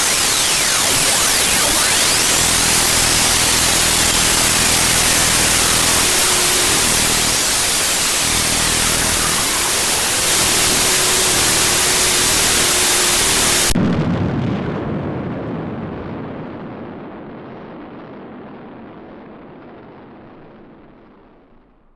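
Curiosity rover's descent radio signal, as picked up by Mars Express, turned into sound: loud hissing static with faint tones gliding up and down through it. About fourteen seconds in, the hiss cuts off suddenly, leaving a lower rumble that fades away to nothing.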